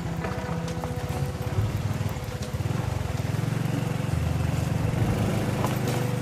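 Motorcycle engine running at low speed with a rapid low putter that grows stronger about halfway through, as the bike rides over a rough, broken gravel road. Scattered short clicks and rattles come from the bike on the stones.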